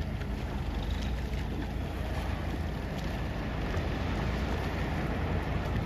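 Steady wind buffeting the microphone over the wash of sea waves and surf.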